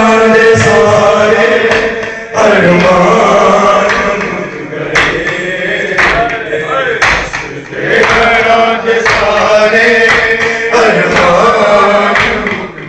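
Men's voices chanting a Shia noha lament in a large hall, with the crowd joining in. Sharp chest-beating (matam) slaps keep time at about one a second from midway on.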